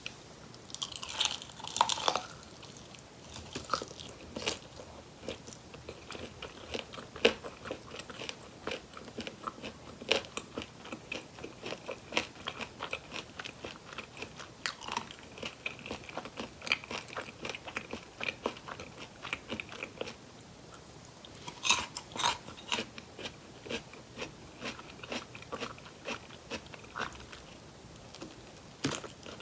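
Close-miked crunching bites into crispy fried chicken drumsticks, a loud bite near the start and another about two-thirds through, with crunchy chewing in between.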